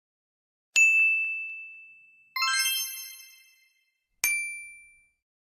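Three chime sound effects of a subscribe-button end-screen animation: a ding about a second in, a fuller chime of several notes near the middle, and a last ding near the end, each struck sharply and ringing out.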